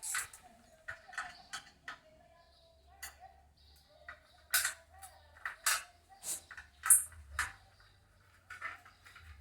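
Irregular clicks, knocks and short scrapes of hands working on an electric fan's base to take a part off, coming in clusters with short pauses.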